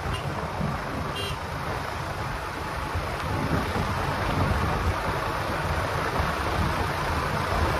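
Steady rushing wind and road noise from a vehicle on the move, with no clear engine note.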